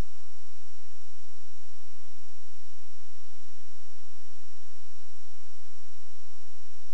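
Steady electronic hum and hiss with a thin high whine and a few faint ticks: noise on the audio line of an analog FPV video link recorded by a DVR, not sound from the plane itself.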